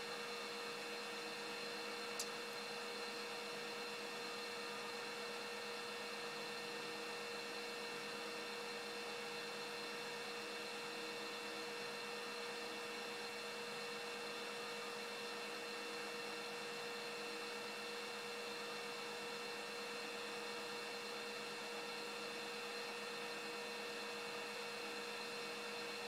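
HF radio receiver audio tuned to an unidentified signal near 7.0418 MHz: steady band hiss with several held tones, the strongest a mid-low hum. One faint click about two seconds in.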